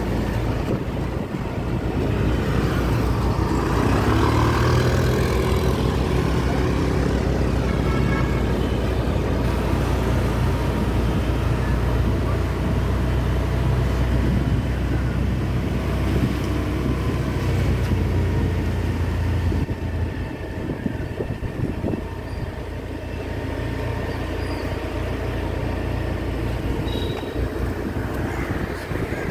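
Steady city street traffic noise: car engines running and passing, with a continuous low rumble.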